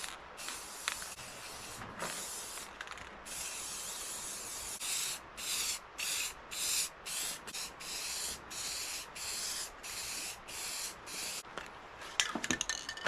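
Aerosol can of spray lacquer hissing onto a carved wooden tree. There are a few sprays, one longer spray, and then a quick run of short bursts about two a second.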